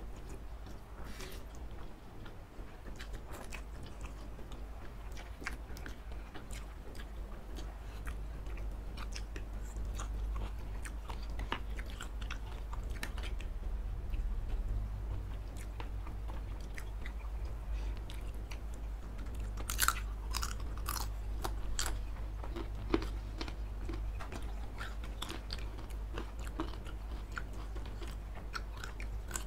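Close-miked eating sounds of two people chewing and slurping saucy fried noodles and satay, with many small wet mouth clicks. A few sharper clicks come near the middle, over a low steady hum.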